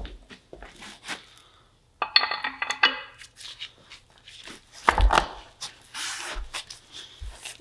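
Hand work on a truck axle: a short screeching rasp of tape being pulled on the taped spindle end about two seconds in, then a heavy knock about five seconds in, with soft knocks and shuffling around it.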